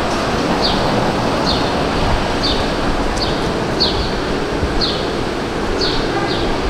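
Steady city street traffic noise, with a short high chirp repeating about once a second.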